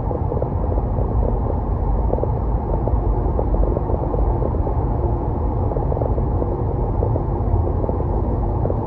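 A car driving: steady low road and engine rumble with tyre noise, unchanging throughout.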